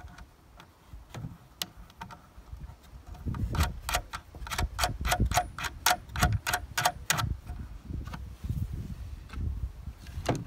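Ratchet spanner clicking in a quick, even run of about four clicks a second for a few seconds, as a nut is tightened onto a bolt through the wooden chair frame. A few scattered clicks and handling knocks come before it, and one more click comes near the end.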